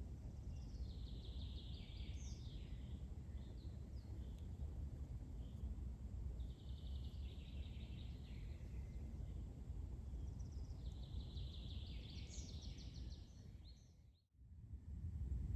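A songbird in a forest singing the same short phrase three times, each about two and a half seconds long and a few seconds apart, over a steady low rumble. All sound drops out briefly near the end.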